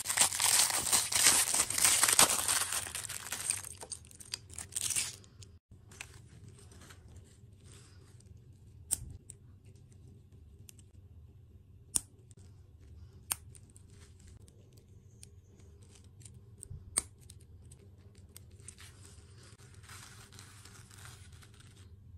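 Crinkling and tearing of a small clear plastic wrapper for about five seconds, then a few sharp, separate plastic clicks as small toy parts are snapped together, with a brief rustle near the end.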